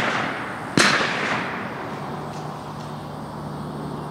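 A single shotgun shot about a second in, its report fading away over the next second, heard over the dying tail of another shot fired just before.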